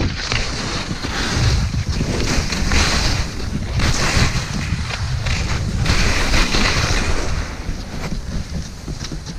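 Wind buffeting the camera's microphone as a low rumble, with skis hissing and scraping over thin snow cover in surges every second or so.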